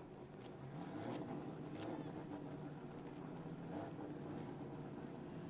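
Faint engine sound of a distant car running at low revs, steady with slight changes in pitch.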